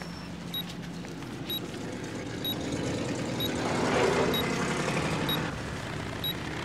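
A vehicle driving past, its noise swelling about four seconds in, over a short high beep repeating about once a second.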